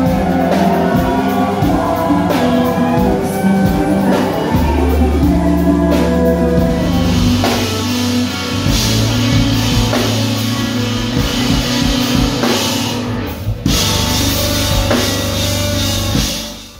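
Live rock band playing loud: electric guitar, bass and drum kit, with the cymbals getting brighter about halfway through and a brief dropout near the end.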